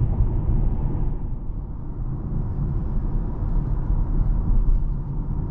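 Steady low tyre and road rumble inside the cabin of a 2023 Mini Countryman John Cooper Works coasting in green mode, its engine disengaged and turning at about 1,000 rpm.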